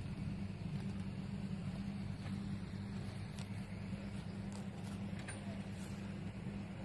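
Steady low engine drone, holding an even pitch throughout.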